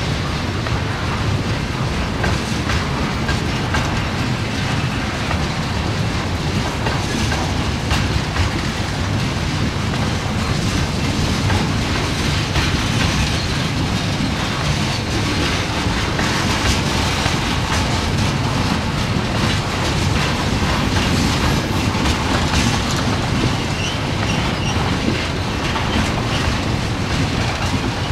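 A freight train's tank cars rolling steadily past, with a continuous rumble and the clickety-clack of wheels going over the rail joints.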